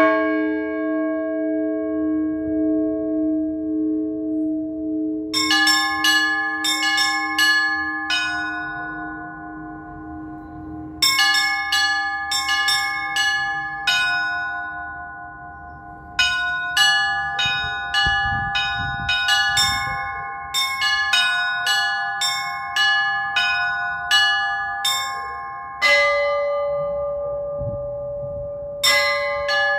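Orthodox church bells rung by a bell ringer. One large bell is struck at the start and left ringing. From about five seconds in come quick runs of strikes on several smaller bells in groups, and a lower bell joins near the end.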